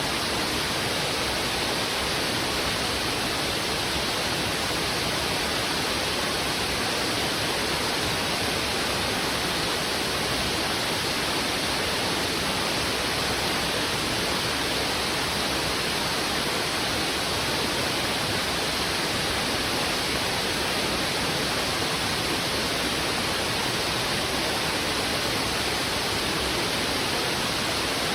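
Heavy river water rushing over rocks: a steady, unbroken rush with no change in level.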